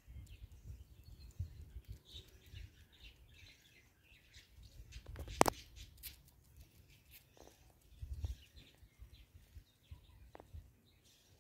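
Small birds chirping faintly and intermittently, over a low uneven rumble, with one sharp click about five seconds in that is the loudest sound.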